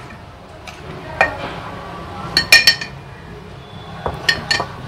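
Metal spoon clinking against a glass jar while powdered sugar is spooned in: one clink about a second in, three quick ringing clinks around the middle, and a few more near the end.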